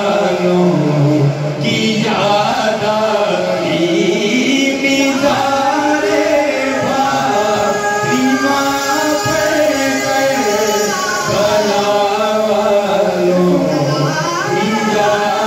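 Male voices singing a naat, an Urdu devotional song in praise of the Prophet, through microphones, in long drawn-out lines that rise and fall in pitch.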